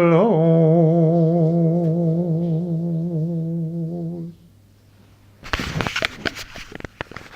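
A man's solo singing voice holds the song's final note with a steady vibrato for about four seconds, then stops. After a short pause, a cluster of sharp, irregular knocks and clatter follows.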